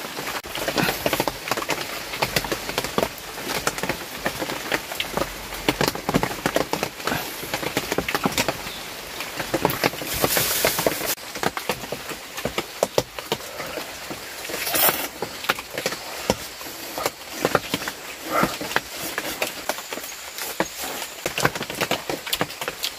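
Heavy rain falling, a dense, uneven patter of drops, with a couple of louder splashes about ten and fifteen seconds in.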